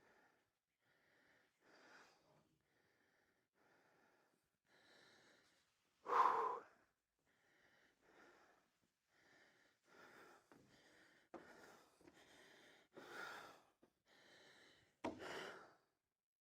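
A man breathing hard from exertion, a heavy breath about every second, with one louder gasp about six seconds in. There is a single sharp click near the end.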